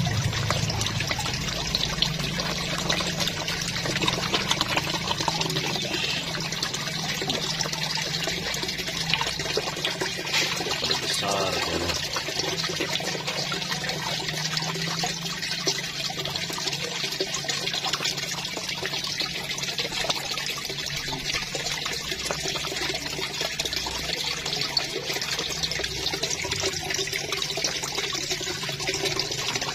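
Koi splashing and sucking at the pond surface as they crowd in to feed on pellets: a steady wash of churning water.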